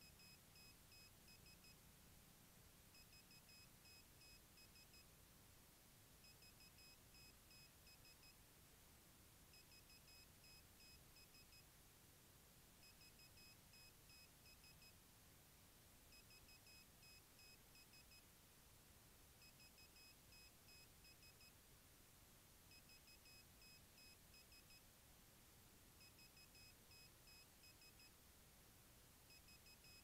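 Near silence broken by faint electronic beeping: runs of rapid high-pitched beeps, each about two seconds long, repeating every three seconds or so.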